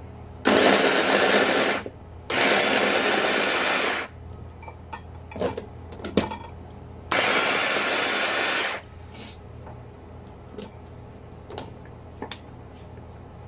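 Electric mini food chopper run in three short bursts, its motor whirring as the blades chop carrot and potato pieces. A few light clicks and scrapes follow near the end as a spatula works the chopped vegetables.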